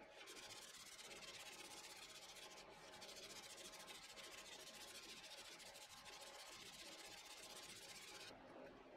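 Sandpaper on a hand-held pad rubbed back and forth over a spalted maple bowl and its resin insert, making a faint, steady scratchy hiss that stops near the end.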